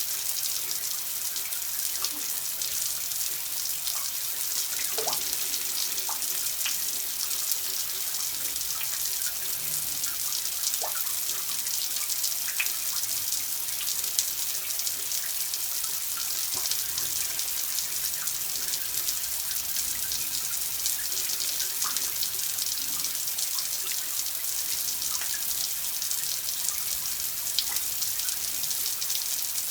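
Steady running water with a bright hiss, with scattered small drops plinking now and then.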